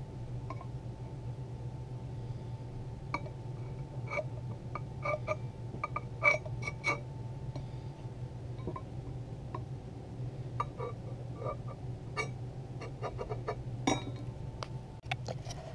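Scattered light metallic clicks and clinks, each ringing briefly, as a compass is set down on and drawn across a metal brake rotor disc. A steady low hum runs underneath.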